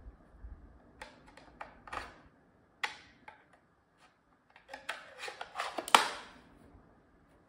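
Hard plastic clicks and knocks of a FlySky FS-GT2 RC transmitter being handled while its battery cover is fitted. A quick run of clicks ends in one loud snap about six seconds in, as the cover is pressed shut.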